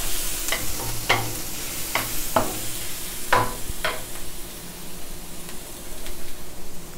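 Chopped onions and garlic sizzling in hot oil in a nonstick wok, with a wooden spatula scraping across the pan about six times in the first four seconds. After that the sizzle goes on with only light stirring.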